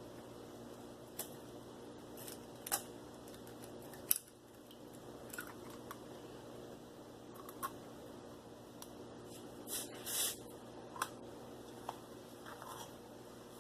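Faint, scattered light clicks and taps of kitchen items being handled, with a short rustling burst about ten seconds in, over a low steady hum.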